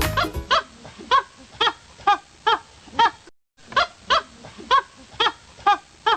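An animal calling over and over in short, honk-like pitched calls, about two a second, each dipping slightly in pitch. The calls break off briefly a little past halfway, then resume.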